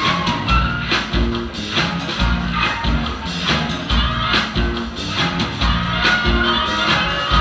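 A live band playing music with a steady beat, about two hits a second, over a moving bass line.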